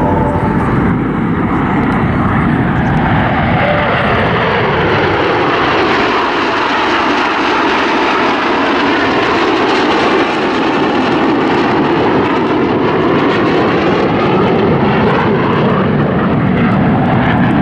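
Red Arrows' BAE Hawk T1 jets flying past in formation: a loud, steady jet roar whose tone sweeps down and then back up as the aircraft pass.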